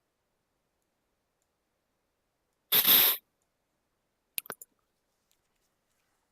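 A single sharp nasal sniff lasting about half a second, followed about a second later by three quick clicks. Otherwise near silence.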